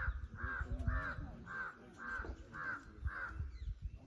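Crow cawing in a steady series of short, harsh caws, about two a second, stopping a little before the end, with a low rumble underneath.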